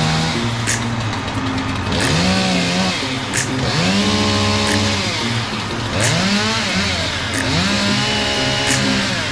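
Chainsaw cutting into tree limbs, its engine revving up and falling off again and again, the pitch rising and dropping about every second and a half.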